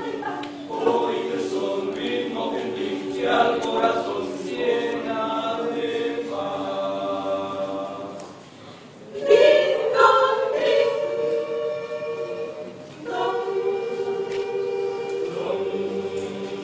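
Mixed choir of men's and women's voices singing a villancico, a Spanish Christmas carol, in held chords. The singing breaks off briefly about halfway through and comes back at its loudest, then pauses once more shortly before the end.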